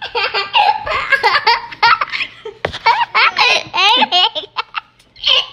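A young girl giggling and laughing right at the microphone, with a woman laughing along, in several short bursts.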